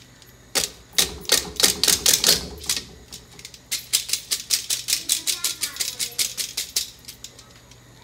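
Metal mesh strainer being tapped and knocked over a steel pot to shake soaked basmati rice out into the boiling water: two runs of quick, sharp taps, about five a second, with a short pause between.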